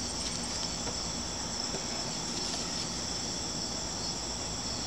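Steady, high-pitched chorus of insects such as crickets, with a faint rapid pulsing chirp that stops about half a second in.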